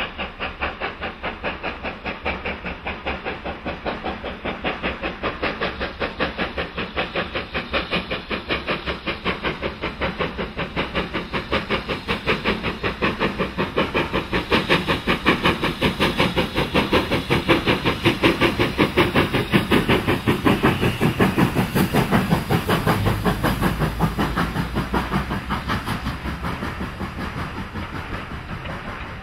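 Steam locomotive working a train, its exhaust chuffing in a rapid, even beat of about five a second. It grows louder as it approaches, is loudest about two-thirds of the way in, then fades as it draws away.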